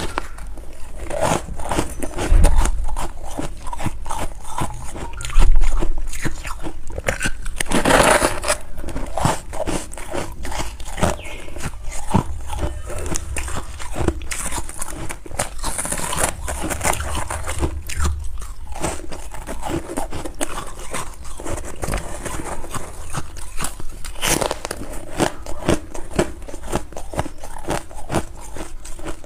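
Close-up biting and chewing of crunchy freezer frost: a dense run of quick crisp crunches that goes on without a break. Two louder low thumps come in the first few seconds.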